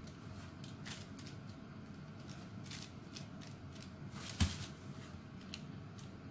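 Silicone spatula scraping and pushing thick chocolate batter around a metal pan, with scattered soft scrapes and taps. One sharper knock about four seconds in, the loudest sound.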